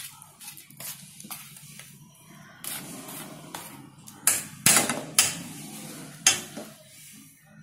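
Metal spoon stirring thick batter in a stainless steel bowl, scraping and clinking against the steel, with several sharp knocks between about four and six and a half seconds in.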